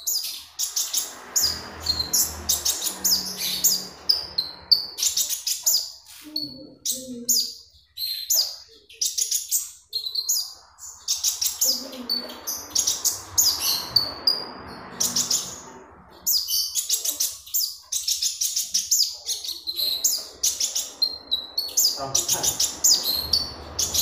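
Caged Van Hasselt's sunbird (kolibri ninja) in full song: a rapid, continuous stream of high, sharp chirps and short trills, broken only by brief pauses.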